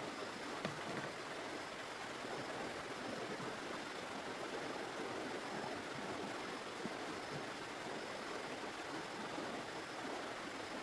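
Steady rush of running water, even throughout.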